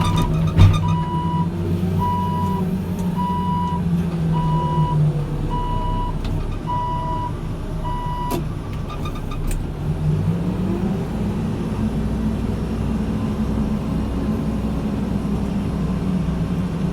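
Backhoe loader's diesel engine running while a reversing alarm beeps steadily, a little under twice a second; the beeping stops about eight seconds in and the engine note rises around ten seconds in. A single knock sounds near the start.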